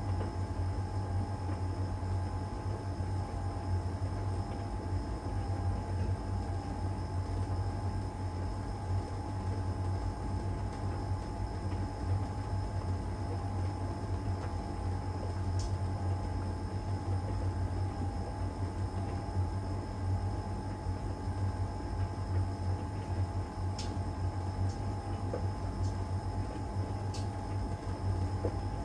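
LG heat pump dryer running steadily mid-cycle: a constant low hum with a steady mid-pitched whine over it. A few faint ticks come through, three of them in the second half.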